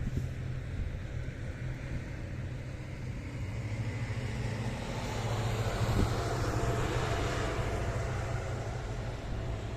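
Distant engine noise from something passing, swelling to a peak about six to eight seconds in and then fading, over a steady low hum.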